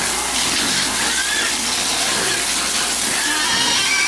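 Water spraying hard from a garden hose onto pigs and a concrete pen floor, a steady gushing hiss. A few thin high-pitched calls come through about a second in and again near the end.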